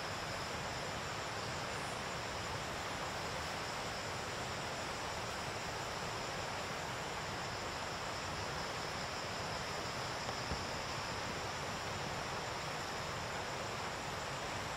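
Steady chorus of forest insects: two high, unbroken tones over an even hiss.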